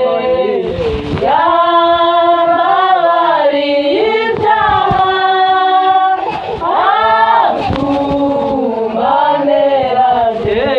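A group of voices singing a gospel worship song in long, held notes that slide up and down in pitch.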